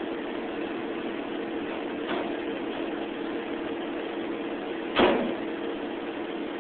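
A single sharp clink about five seconds in, from a cat's paw knocking against its metal water bowl while it drinks with its paw, over a steady hum.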